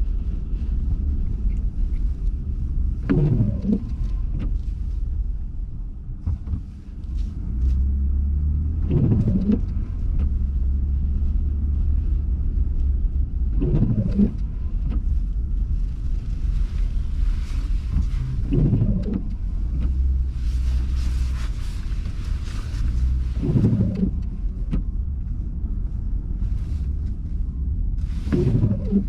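Inside a car driving through a snowstorm: steady engine and road rumble, with the windshield wipers making one short sweep about every five seconds. A hissing swell about two-thirds of the way through, like slush under the tyres.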